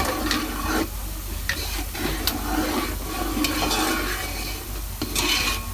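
Sliced onions sizzling as they fry in oil in a large metal pot, being browned to light brown, while a metal spoon stirs them and clicks against the pot several times.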